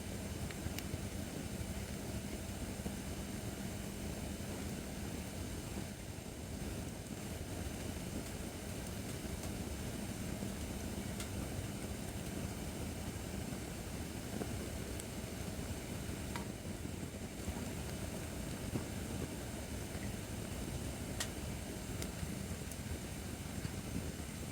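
Acacia firewood burning in a campfire stand: a steady low rush with a few sharp crackles scattered through.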